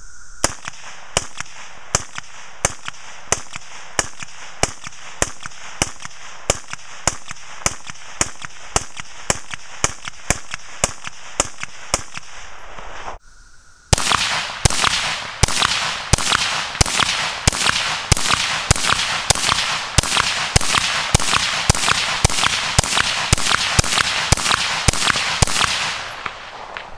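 Suppressed M16 rifle with a SureFire Mini suppressor firing a long string of single shots, about one and a half a second. About 13 seconds in, after a short break, a second, louder string of faster shots follows, about two a second, from a suppressed rifle, stopping near the end.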